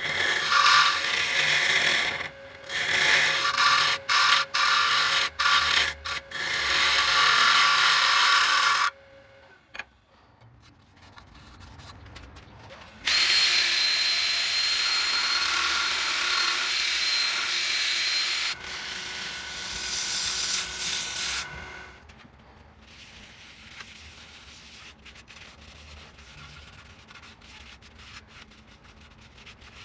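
Bowl gouge cutting a spinning mallee burl disc on a wood lathe, in several passes with short breaks. Midway a cordless drill starts suddenly with a steady high whine as it is pressed against the spinning disc to sand it, then drops in level and stops. Near the end there is only soft rubbing of a cloth over the wood, with scattered light clicks.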